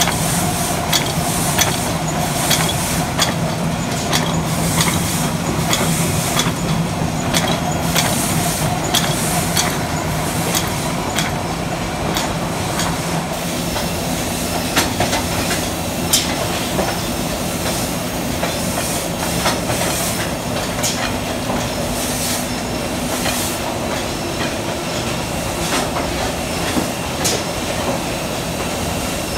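Book-binding machinery running: a steady mechanical hum under a fast, irregular clatter of clicks.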